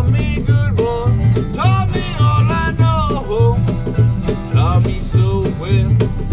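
Small acoustic string band of mandolin, acoustic guitar and electric guitar playing an instrumental break in a country tune. A lead line with bent, sliding notes runs over a steady strummed rhythm of about two beats a second.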